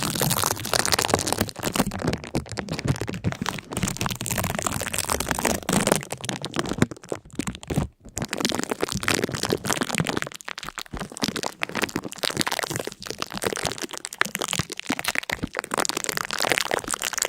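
Dense crackling and crunching, many small sharp cracks in quick, irregular succession, with a brief lull about seven seconds in.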